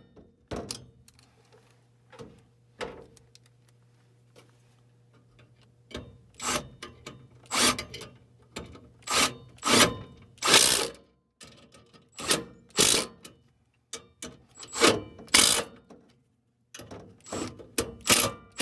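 Trigger spray bottle squirting soapy leak-detection solution onto the furnace's gas fittings to check for a natural gas leak: a dozen or so short squirts at uneven spacing, starting about a third of the way in. A low steady hum, the furnace running, sits underneath.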